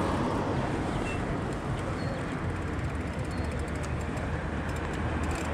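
Steady city traffic noise, a low rumble of passing motor vehicles. A few short high chirps come through, and a light rapid ticking appears about halfway through.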